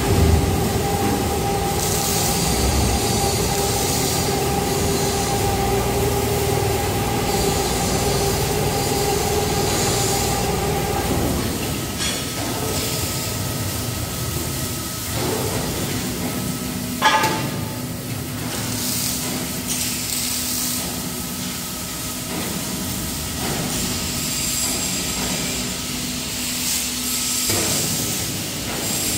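Hydraulic coil loading car of a 7-ton decoiler. The hydraulic power unit hums steadily while the car's lift platform lowers. About halfway through the sound changes to a lower steady hum as the motor drives the car back along its rails, with one sharp clank a little after that.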